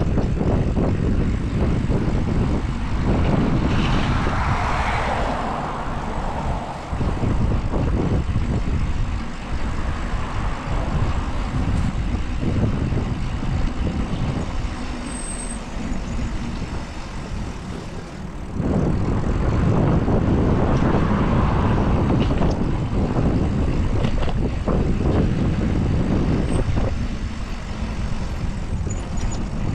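Wind buffeting the microphone during a bicycle ride, over street traffic, with vehicles passing and swelling louder about four seconds in and again around twenty seconds in.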